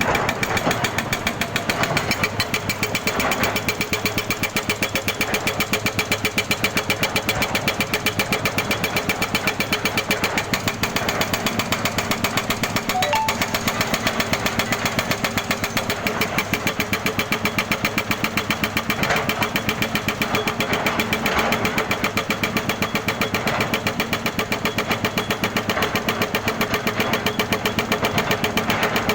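Jackhammer pounding without a break in rapid, even blows, over the steady hum of an engine running.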